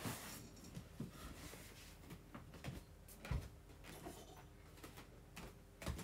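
Scattered light knocks and clicks of someone moving about a small room, with a low thump about three seconds in.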